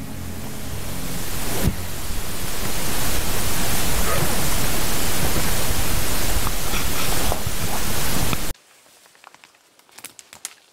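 Loud, steady rushing noise on a body-worn camera's microphone. About two seconds before the end it cuts off suddenly to quiet, with a few faint clicks and snaps.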